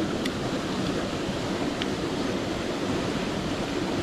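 Mountain stream water rushing steadily, with two faint clicks, one just after the start and one about two seconds in.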